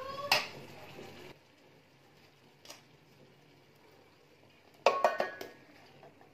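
Metal utensil clinking against the cooking pot as boiled rice is spooned in over the koftas: a sharp click just after the start, a faint tick in the middle, and a quick cluster of ringing clinks about five seconds in.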